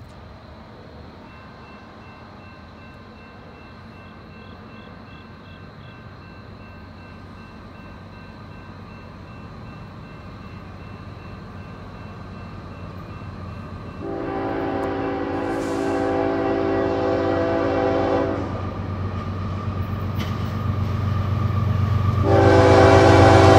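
Approaching CSX diesel locomotive sounding its horn in two long blasts, the first about 14 seconds in and the second near the end, while the rumble of the train grows steadily louder as it nears.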